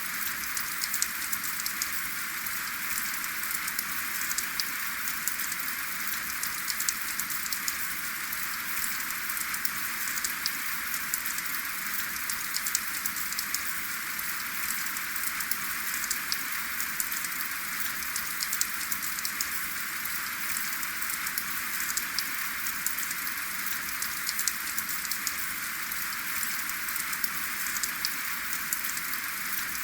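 Steady rain falling, a constant hiss with dense, fine patter of individual drops and no thunder.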